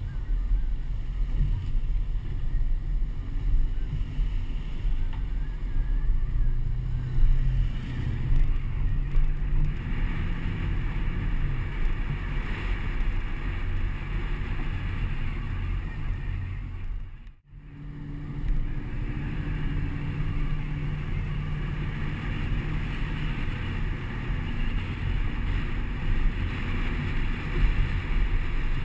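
Pickup truck driving slowly, with engine hum, tyre noise and wind buffeting a camera mic mounted on the outside of the truck. The sound drops out sharply for a moment about two-thirds of the way through.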